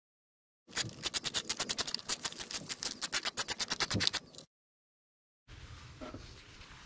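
Socket ratchet on a long extension clicking in a rapid, even run while undoing the 10 mm bolt that holds an ignition coil, for about three and a half seconds before it stops suddenly. Faint handling noise follows near the end.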